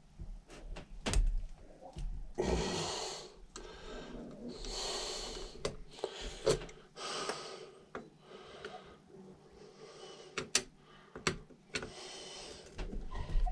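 Hand work on a motorcycle carburetor as its float bowl is taken off: scattered sharp clicks of a screwdriver and small metal parts, with a few short rasping sounds.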